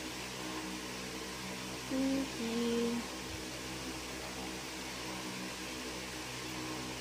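Steady hum of an electric fan running. About two seconds in, a woman hums two short notes with her mouth closed, the second note lower.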